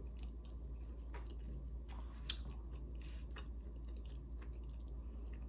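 A person chewing soft food close to the microphone, with scattered small wet mouth clicks and lip smacks.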